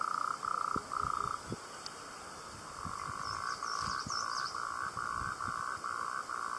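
A frog calling in a steady series of short trilled croaks, about two a second, with a pause of a second or so partway through. A few brief high bird chirps come in around the middle.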